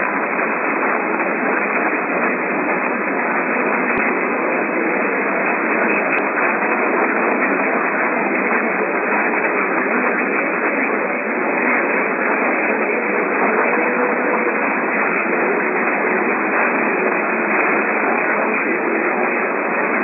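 Steady AM radio static: an even, thin hiss through a narrow-band receiver, with a couple of faint ticks a few seconds in.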